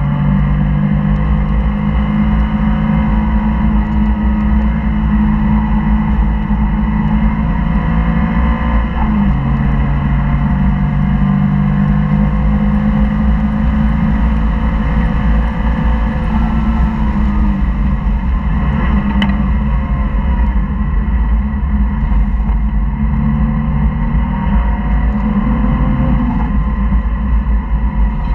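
Porsche flat-six engine pulling hard at track speed, heard from inside the cabin over a constant low road and wind rumble. The engine note rises and falls through the lap, dropping sharply about nine seconds in.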